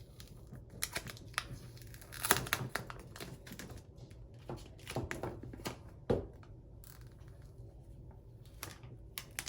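Scattered light clicks, taps and rustles of hands handling a hair dryer's power cord and plug while plugging it in. The two sharpest knocks come about two and six seconds in.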